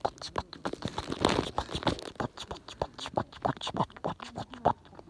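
Wood fire crackling: dense, irregular snaps and pops, with a short stretch of hiss a little over a second in.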